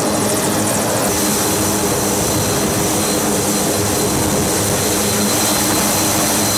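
The twin turboprop engines of a C-2A Greyhound carrier transport running on deck: a loud, steady drone with a thin, high whine over it.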